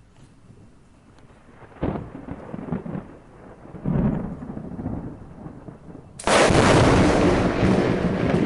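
Thunder: two rolls of rumbling about two and four seconds in, then a loud sudden thunderclap about six seconds in that keeps on rumbling.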